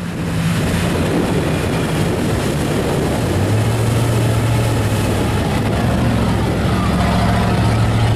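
Mega mud truck's engine running loudly and steadily, its deep note settling lower about three and a half seconds in.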